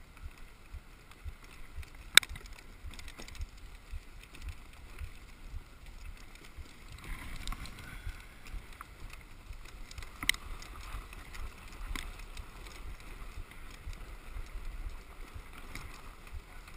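Dog sled gliding over a packed snow trail: the runners scrape and hiss on the snow under a low rumble, with scattered clicks and knocks, one sharp knock about two seconds in and a smaller one about ten seconds in.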